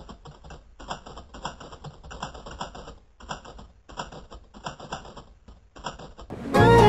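Typing sound effect: rapid runs of key clicks with a couple of short breaks, keeping time with text being written out. Music comes in loudly just before the end.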